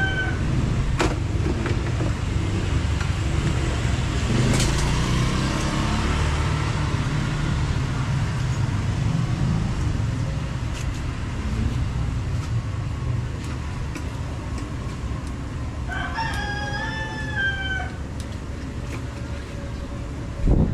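Honda XR200's single-cylinder four-stroke engine running steadily, with a rooster crowing once about sixteen seconds in.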